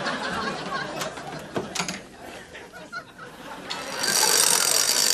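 Scattered knocks and clicks, then from about four seconds in a hand tool working metal at a bench vise, with a loud, dense rasping that keeps going.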